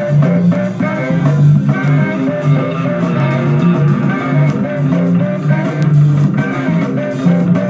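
Live band music played back through a large horn loudspeaker: guitar-led blues rock over a steady bass line, with light drum hits.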